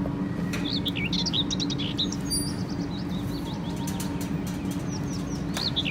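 Small birds chirping in quick, high runs of notes, in clusters about a second in and again near the end, over a steady low hum.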